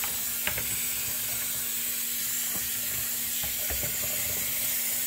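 Hot tap water running steadily into a plastic colander of jasmine rice in the sink, rinsing off the extra starch, with a few light knocks as the colander is handled.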